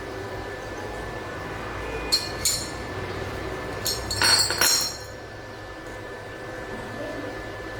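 A few short, ringing clinks of hard objects knocking together: two light ones about two seconds in, then a louder cluster about four seconds in. A steady faint hum runs underneath.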